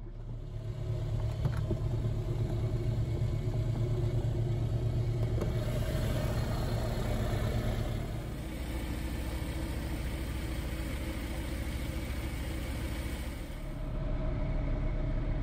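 Engine and pusher propeller of a Super Petrel 100 amphibian running steadily as it moves on the water, heard from inside the cockpit. The sound shifts and drops slightly about eight seconds in, then comes back up near the end.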